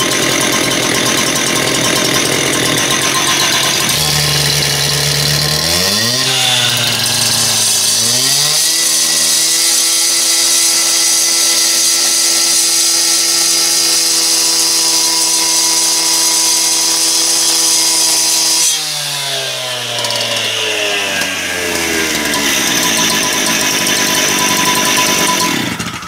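Petrol concrete saw revving up from idle to full speed about six seconds in. It holds full speed for about ten seconds while the blade cuts dry into concrete, then falls back to idle.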